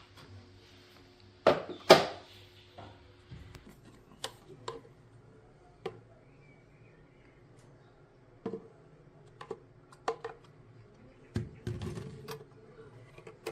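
Scattered clicks and knocks of hard objects being handled, with two louder knocks close together near the start. A faint low hum stops a few seconds in.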